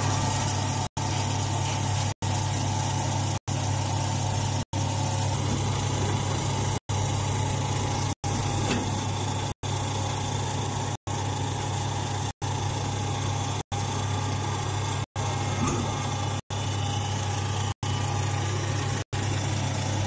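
Hydraulic straw baling press's power unit running steadily, a continuous low hum. The sound drops out for an instant about every second and a quarter.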